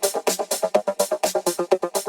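Electronic music: a fast, even run of short pitched synth notes, about eight a second, over a bright, crisp high percussion pattern.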